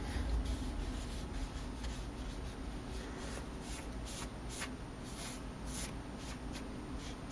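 Felt-tip marker drawing on paper: a series of short strokes of the tip across the sheet, over a faint steady room hum.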